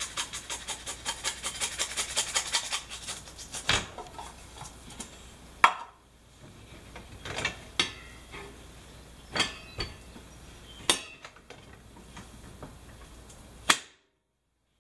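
A metal SPAM can, the loaf and a wire slicer handled on a plastic cutting board: a fast run of small clicks for the first few seconds, then a string of separate sharp knocks and clacks, the loudest nearly six seconds in.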